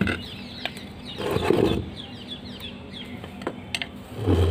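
Birds chirping in the background, many short high downward chirps in quick succession. Two louder brief noises come about a second in and near the end as a large plant pot is handled.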